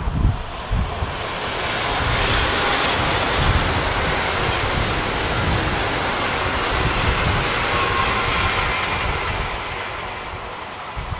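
ICE 3 high-speed train passing at speed: a broad, even rushing noise of wheels and air that swells over the first couple of seconds and eases off near the end as the train recedes. Wind buffets the microphone throughout.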